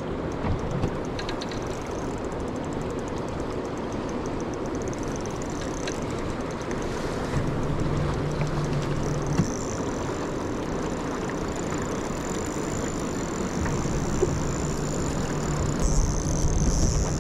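Boat engine running steadily under wind and water noise, with a low hum that comes in partway through and again near the end.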